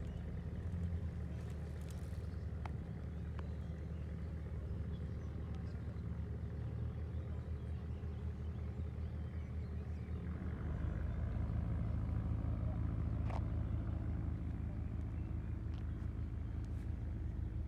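A low, steady engine hum from a vehicle, which shifts slightly and gets a little louder about ten seconds in, with a few faint clicks.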